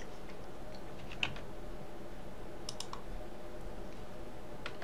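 A few scattered, separate clicks of keys and buttons at a computer, the clearest about a second in, a quick pair in the middle and another near the end, over a faint steady background hum.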